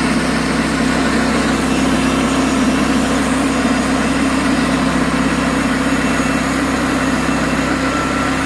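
Norwood LumberPro HD36 portable bandsaw mill running steadily under power, its engine and band blade sawing through a squared log.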